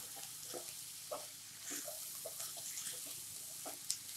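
Green beans, tomato and spices sizzling faintly in a kadai while being stirred, with a few light scrapes and taps of the spatula against the pan.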